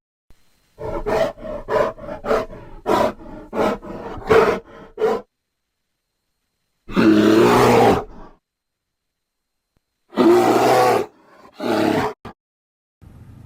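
A large wild animal calling: a quick run of about ten short grunts, then after a pause two long, loud roars and a shorter one.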